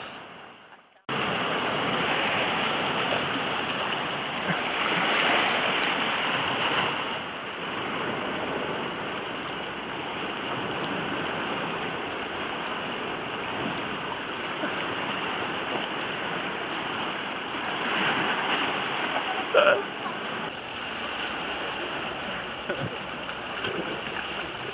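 Sea surf washing against shore rocks, a steady rushing noise mixed with wind on the microphone, starting suddenly after about a second of silence. A brief louder sound stands out about twenty seconds in.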